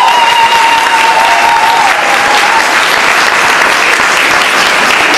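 Audience applauding steadily after a dance performance, with one long high-pitched call from someone in the crowd that trails off about two seconds in.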